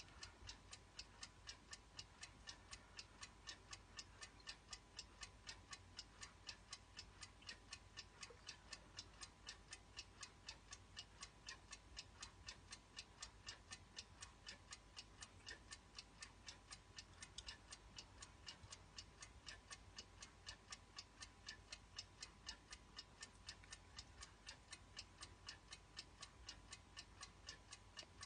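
1960s twin-bell wind-up alarm clock ticking faintly, a quick, perfectly even tick without a break.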